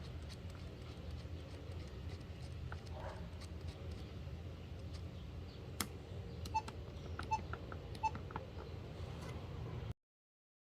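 BlackBerry Curve 8900 alert tone: a click, then three short, clear beeps about three-quarters of a second apart, over a steady low hum. The sound cuts off about ten seconds in.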